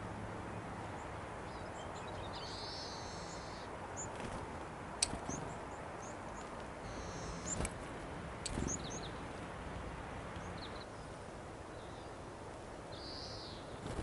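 Small wild songbirds calling, a few short high chirps and brief call phrases over steady outdoor background noise. Several sharp taps fall in the middle as a varied tit flies in and lands on a seed jar held in a gloved hand.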